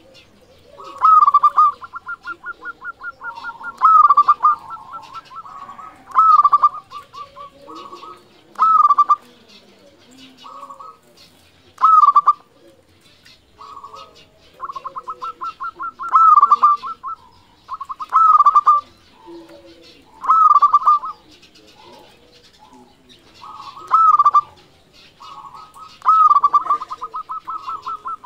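Zebra dove (local perkutut) singing: a loud rolling coo repeated about every two to three seconds, with quick runs of short staccato cooing notes between some of them.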